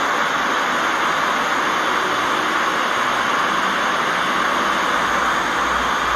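Pink noise played loud through a bare BMA L8040 New 8-inch speaker driver as a test signal for an SPL measurement: a steady hiss, strongest in the upper mids and thin in the bass.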